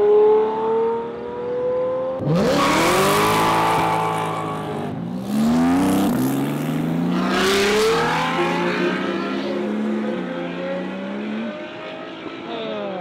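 High-performance sports car engines accelerating hard away one after another, each revving up in pitch through gear changes. Loud surges come about two, five and seven and a half seconds in.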